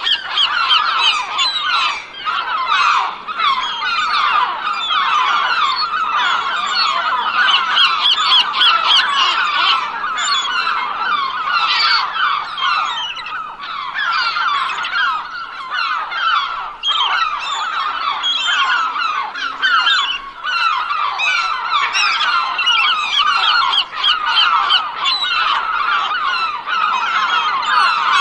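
A large flock of gulls calling all at once, with many short, overlapping squawks and yelps forming a continuous din that never pauses.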